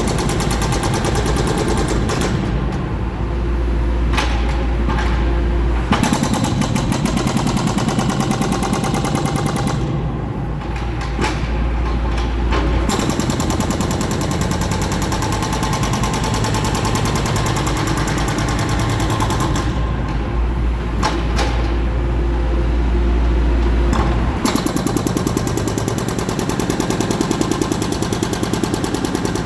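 Hydraulic breaker hammer on a Cat 420 backhoe loader pounding concrete in rapid, evenly spaced blows. It comes in four long runs, broken three times by pauses of a few seconds in which the diesel engine's low rumble carries on alone.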